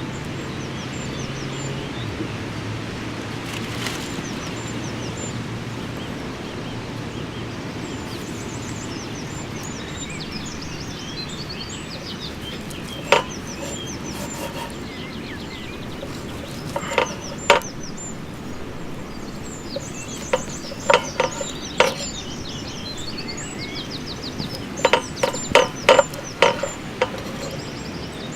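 Birds chirping over a steady outdoor rush, with sharp knocks or crackles in short clusters from about halfway through; the knocks are the loudest sounds.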